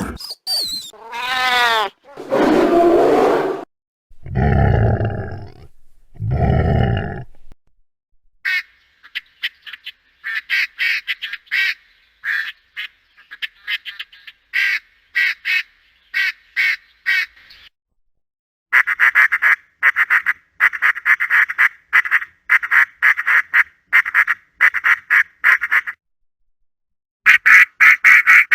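Ducks quacking in long, fast runs of short calls, broken by brief pauses. The first few seconds hold different animal sounds: a long call falling in pitch, then two long, low, loud calls.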